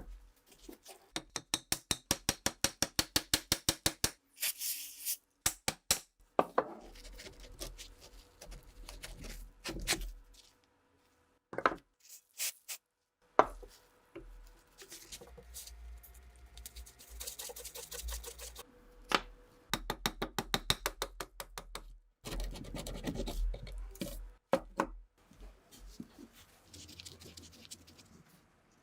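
Hand work on a Mosin rifle's parts. It opens with a quick, even run of sharp clicks, about eight a second, for a few seconds. After that come scraping, rubbing and single knocks, broken by short silent cuts.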